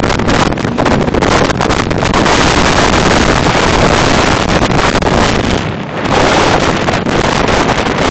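Heavy wind buffeting a phone microphone aboard a fast-moving RIB, over the boat running at speed on the water. The gusts ease briefly about six seconds in.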